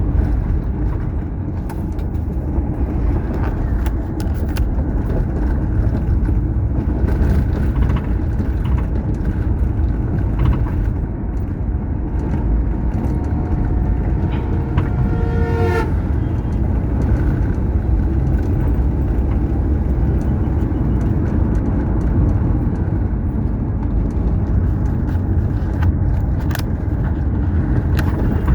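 Steady road and engine noise of a car driving on a highway, with a short horn toot about halfway through.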